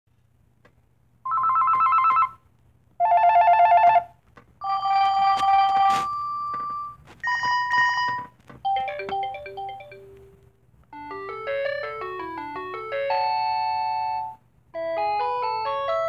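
Panasonic KX-TGC220 cordless phone handset playing its ringtone previews one after another as the ringer menu is scrolled: first four short warbling electronic ring tones, each at a different pitch, then from about halfway, beeping melodies of quick stepped notes. Faint key clicks come between the tones.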